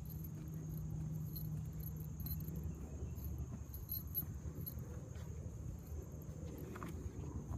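Insects in woodland trees: a steady high drone with rapid repeated chirps, over a low rumble from the handheld phone's microphone.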